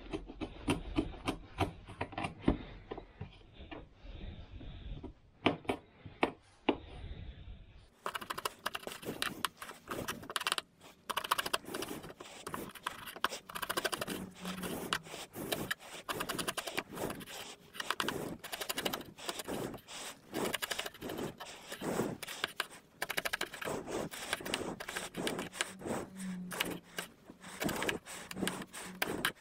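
Kitchen scissors repeatedly snipping through pickled mustard greens on a wooden cutting board, a fast run of sharp clicks with light scraping. The snipping gets denser and brighter about eight seconds in.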